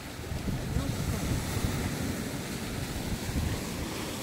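Sea surf washing against a rocky shoreline, with wind rumbling on the microphone.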